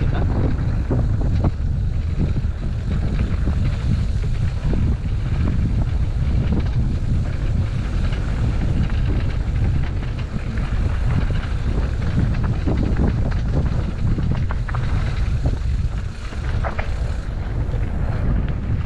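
Heavy wind rumble buffeting the microphone during a mountain-bike ride, with scattered sharp clicks and rattles from the bike on the trail.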